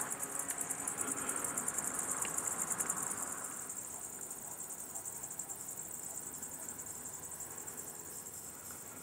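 Cicadas singing: a continuous, rapidly pulsing high-pitched buzz that grows somewhat fainter after about three and a half seconds.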